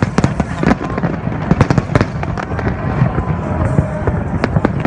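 Fireworks display: a rapid, irregular string of sharp bangs and cracks over a continuous low rumble of shell bursts.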